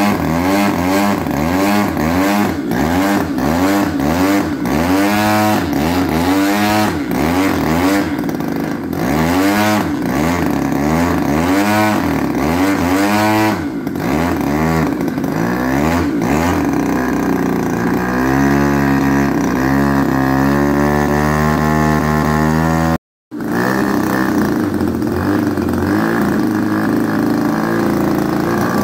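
GP 61cc two-stroke gasoline engine on a large RC aerobatic plane, turning a 24x9 carbon propeller in a ground run-up. The throttle is opened and closed over and over, the pitch swooping up and down about once a second, then held higher and steadier. The sound cuts out for a moment about three-quarters through, then the engine runs on steadily.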